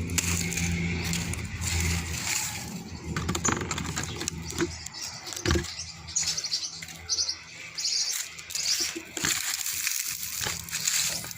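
Rustling of pumpkin vines and leaves as they are pulled up and handled, with scattered sharp snaps and clicks.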